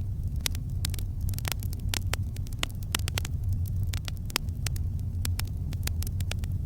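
Campfire crackling: irregular sharp snaps and pops from the burning wood, several a second, over a steady low rumble.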